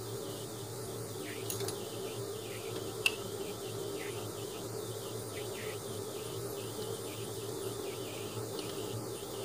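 Crickets chirping steadily over a low steady hum, with a single sharp metallic clink of a wrench about three seconds in.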